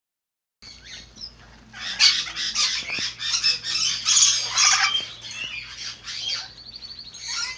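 Many caged birds squawking and chirping at once, a dense overlapping chorus that swells about two seconds in, with a quick trill near the end.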